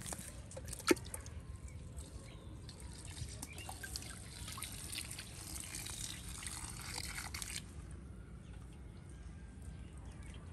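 Shallow water trickling and dripping in a muddy trench, with one sharp click about a second in.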